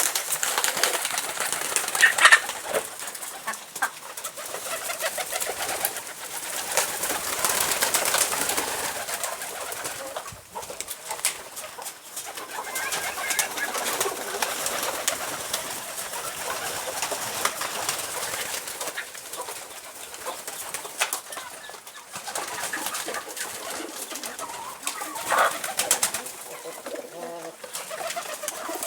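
Pigeons cooing, with scattered short clicks and knocks.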